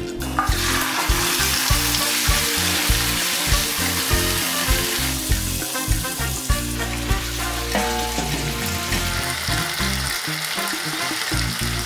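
Raw chicken pieces hitting hot oil in a nonstick wok, setting off a loud sizzle less than a second in that carries on steadily as they fry and are stirred with a spatula. Background music with a bass line plays underneath.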